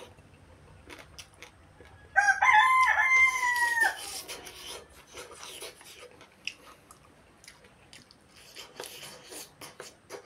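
A rooster crows once about two seconds in, a loud call lasting under two seconds. Around it come faint clicks and smacks of chewing and eating by hand.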